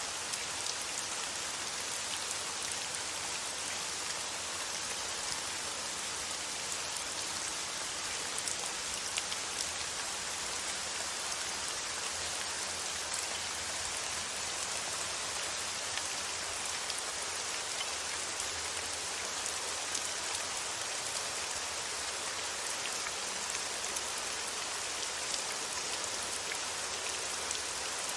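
Steady rain falling and pattering on a surface, an even hiss with small scattered drop ticks.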